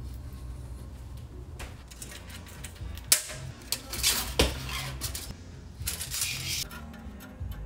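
Metal being handled on a workbench: several sharp metallic clinks and short scrapes, loudest between about three and four and a half seconds in and again around six seconds, as of sheet steel and tools being picked up and set down for seat-pan fabrication.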